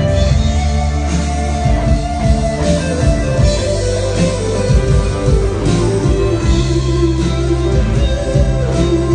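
Live rock band playing, with electric guitar over bass and drums.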